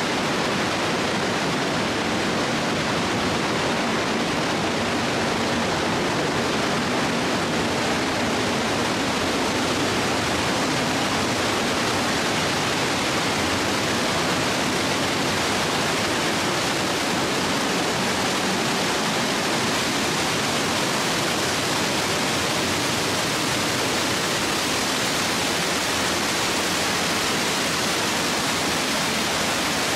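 Rushing water: a steady, unbroken noise.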